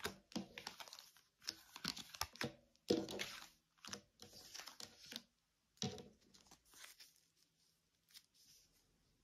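Tarot cards being handled: a run of irregular rustles, flicks and taps as the deck is worked and cards are laid down, thinning out over the last couple of seconds.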